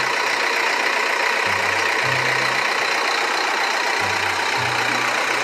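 A JCB backhoe loader's diesel engine runs steadily while the machine works, loading a dump truck. A low drone rises and falls in pitch about every two and a half seconds.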